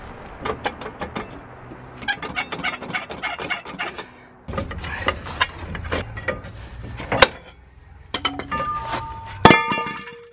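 Background music with plucked guitar, over metal knocks and clanks as a rear brake drum is worked loose and pulled off the axle. A single loud, ringing clank comes near the end.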